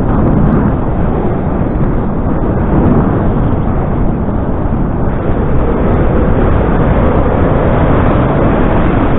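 Loud, steady wind rush buffeting the microphone from the airflow of a paraglider in flight.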